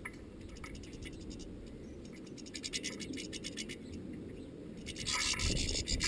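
European goldfinch pecking among sunflower seeds in a metal feeder: light scratchy clicks as the seeds are shuffled and picked at. About five seconds in, a louder burst of fluttering and scrabbling as more goldfinches fly in and land.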